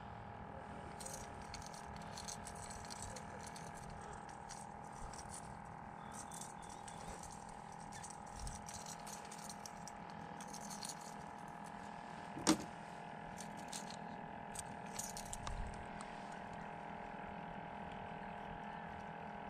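Faint small clicks and rattles of fishing tackle being handled while a line is rigged, with one sharper click about twelve seconds in, over a steady hum.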